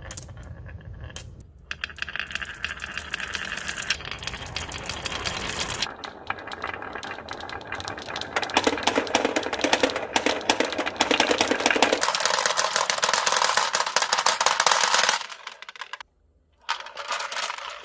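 Marbles rolling and clattering along rain-gutter and wooden-rail tracks in a dense, continuous rattle of clicks. The rattle changes in tone several times and drops away briefly near the end.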